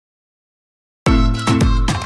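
Dead silence, then background music cuts in abruptly about a second in, with a strong, heavy low beat.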